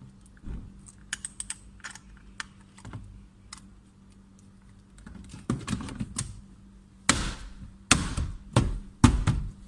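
Small plastic clicks and taps, then several louder knocks in the last few seconds, as the door trim and window switch panel are pressed and snapped back into place.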